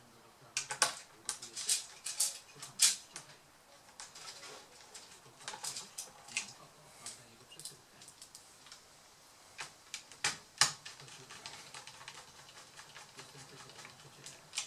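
Small screwdriver and screws clicking against a laptop's plastic bottom case as it is screwed back together: irregular sharp clicks and ticks in clusters, the loudest about a second in, near three seconds and near eleven seconds.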